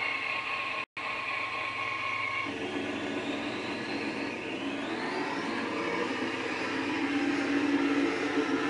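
1:14 scale RC Volvo F88 truck's electric drive running with a steady mechanical whine. The whine changes about two and a half seconds in, then rises in pitch as the truck pulls away. The sound cuts out for an instant about a second in.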